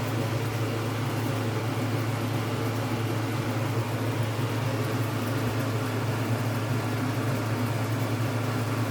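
Small electric motor of a homemade fan-and-pump air cooler running steadily, a constant low hum with an airy hiss over it.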